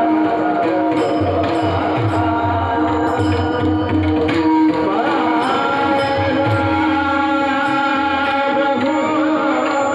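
Indian-style music: a held, wavering melody line over repeated low hand-drum strokes.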